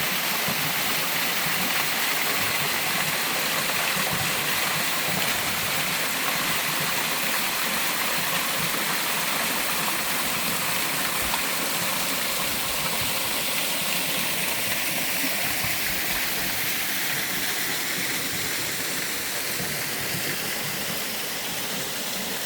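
Mountain-valley waterfall and stream: water falling and rushing over rocks in a steady, unbroken rush, easing slightly near the end.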